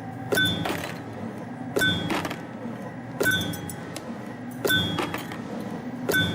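CNC spring-forming machine (YHM CF-330) running production on 2.5 mm wire. A sharp metallic clink with a brief ring, followed by a few quick clicks, repeats about every one and a half seconds, five times, over a steady low machine hum.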